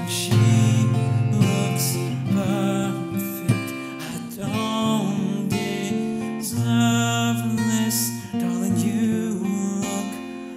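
Acoustic guitar strummed in a slow ballad accompaniment, with a man singing over it.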